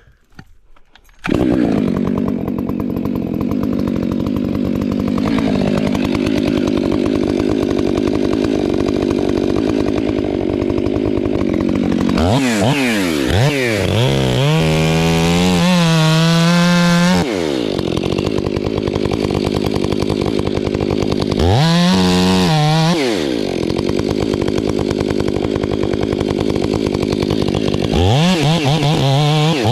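Two-stroke chainsaw starting up about a second in and running at a steady pitch while cutting into a dead fir tree. It then revs up and back down three times.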